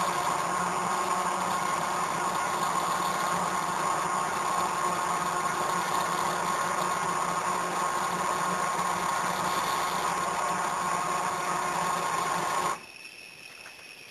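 Stepper motors of a CNC hot-wire foam cutter running steadily with a whine as the machine moves through a cut, stopping abruptly near the end and leaving a much fainter steady hum.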